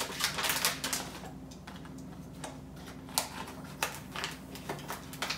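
Plastic treat pouch crinkling and rustling as it is handled, a string of irregular sharp clicks, over a steady low hum.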